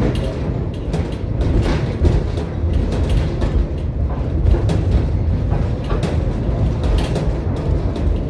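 Tram running along the track, heard from inside the car: a steady low rumble with scattered knocks and clicks from the wheels and car body.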